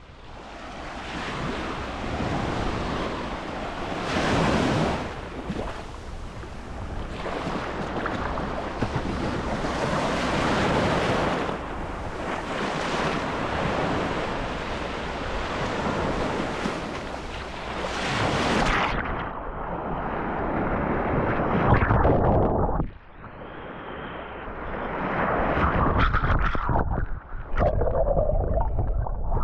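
Baltic Sea surf breaking and washing up the shore, swelling and falling every few seconds, with wind buffeting the microphone. About two-thirds of the way in the sound turns duller, as if from a closer, muffled recording of the water.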